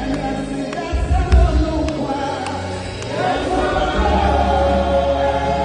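Music with singing over a strong bass.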